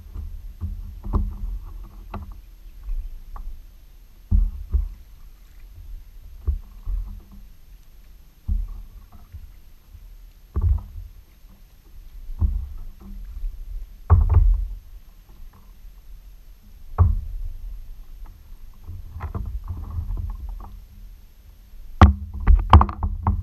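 Paddling a sit-on-top kayak: water sloshing with each stroke and the paddle knocking against the hull every second or two, with a quick cluster of sharper knocks near the end.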